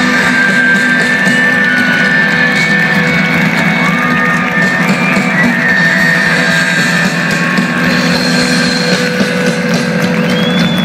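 Live rock band playing loud, with sustained guitar chords ringing on, heard from within the audience.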